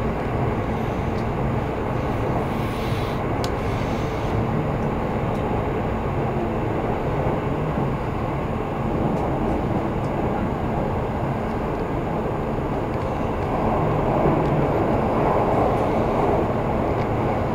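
Running noise heard from inside a Kintetsu limited express carriage: a steady rumble of the train on the rails, swelling a little about fourteen seconds in.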